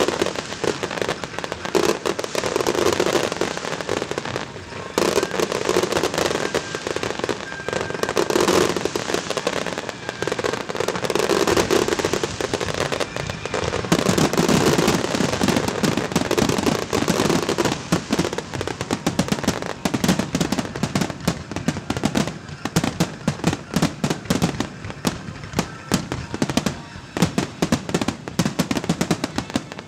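Aerial fireworks display: shells bursting in the sky with continual bangs and popping, turning into a dense rapid crackle in the second half.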